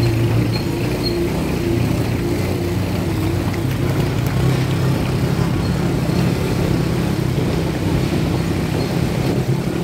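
A motor vehicle's engine running steadily at an even speed.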